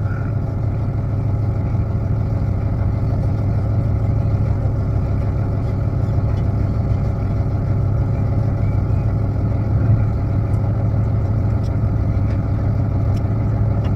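An engine running at a steady speed: a low, even drone that holds unchanged throughout.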